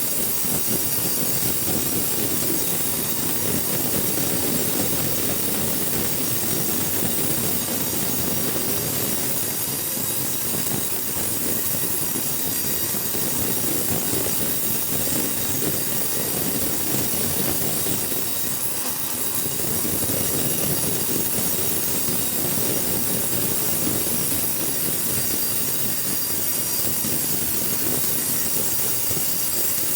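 Sawmill saw running and cutting coconut wood: a steady, loud mechanical noise with a high whine over it, easing slightly for a moment about two-thirds of the way through.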